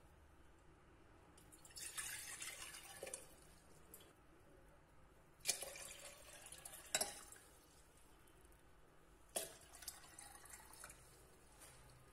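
Water poured from a cup into a glass teapot, three separate pours, one for each cup of water, with a few sharp knocks in between.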